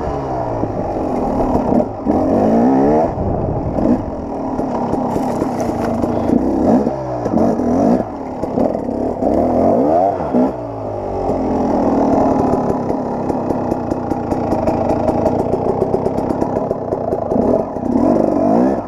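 KTM 300 XC-W two-stroke single-cylinder dirt-bike engine pulling up a steep climb, its revs rising and falling again and again as the throttle is worked.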